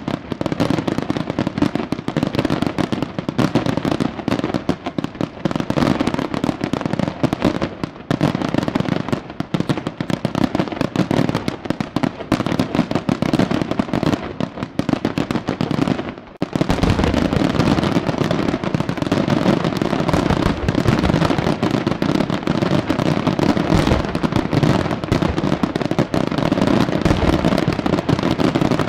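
Fireworks display: a rapid barrage of aerial shells bursting, the bangs overlapping with hardly a gap. After a brief break about halfway through, the bangs come thicker, with more low rumble.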